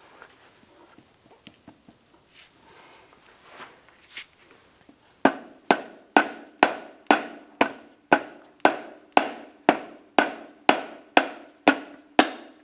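Hammer tapping a 2013 Cadillac SRX's rear drive shaft to free it from the transfer case: a steady run of about fifteen sharp blows, roughly two a second, each with a short metallic ring. The blows start about five seconds in, after a few faint knocks.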